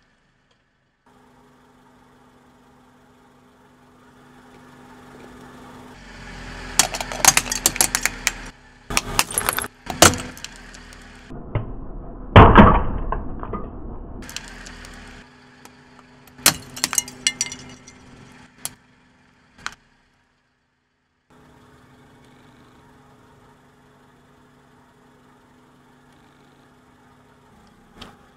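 Car engine idling while the car's tyre rolls over and crushes brittle objects on asphalt: a run of cracking and snapping, the loudest crack about twelve seconds in, then a few more snaps before the engine hum runs on alone.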